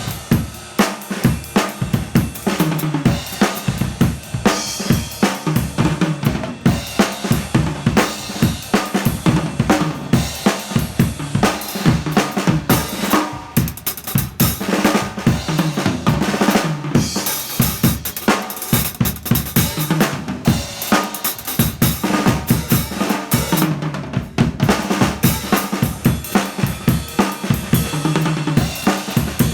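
Drum kit played in a steady, busy beat, with kick drum, snare and hi-hat, and cymbals ringing out more heavily about two-thirds of the way through and again near the end.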